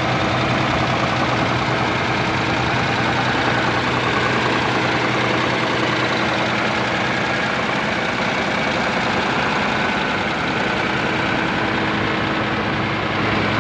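Diesel engine of a rear-engined intercity coach idling steadily, heard close to its open rear engine hatch.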